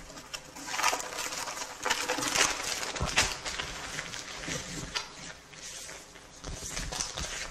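Paper leaflets rustling and crinkling with uneven crackles as a wad of junk mail is pulled out of a mailbox and leafed through.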